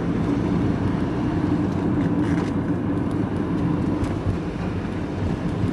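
Engine and road noise heard from inside a moving vehicle's cab: a steady low engine hum over tyre rumble.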